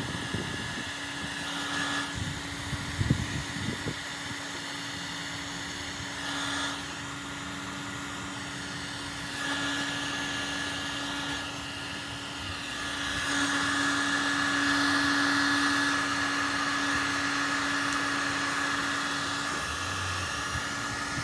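Electric heat gun running steadily, its fan whirring with a steady hum and a higher whine, blowing hot air onto a vinyl emblem overlay to soften it; it gets louder for a stretch after about twelve seconds. A few low thumps near the start.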